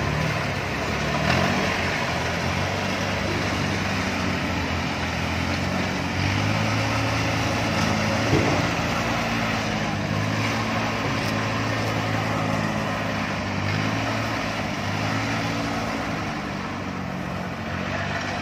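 Diesel engines of rice harvesting machines, Kubota DC70 combine harvesters and a small tracked carrier, running together as a steady drone whose pitch shifts as the machines move. There is a brief knock about 8 seconds in.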